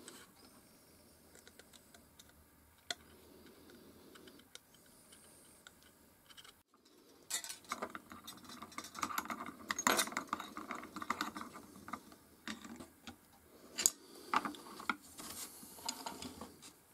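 Small metal parts of a gramophone soundbox being handled and worked by hand: light clicks, taps and scraping of the aluminium diaphragm, needle bar and tools. The sounds are sparse at first and grow busier about seven seconds in, with the sharpest clicks around ten and fourteen seconds in.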